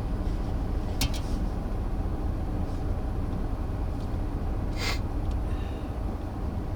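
Steady low rumble inside a stopped car's cabin, with two brief sharp clicks, about a second in and again near five seconds in.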